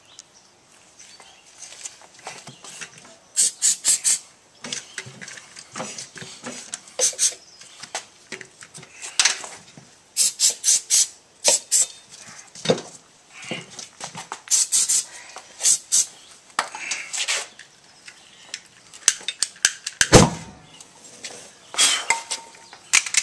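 Aerosol can of engine starting fluid (ether) sprayed in repeated short hissing bursts into the gap between a lawn tractor turf tire's bead and its rim. About twenty seconds in there is a single loud, deep pop as the ether is ignited and the bead seats on the rim.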